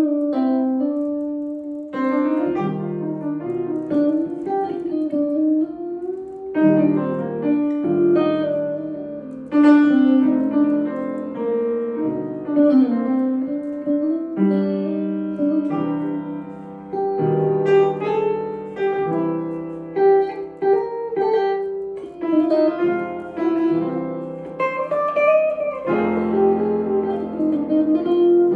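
Piano playing an instrumental break in a song: sustained chords over a bass line, with a new chord struck about every one to two seconds.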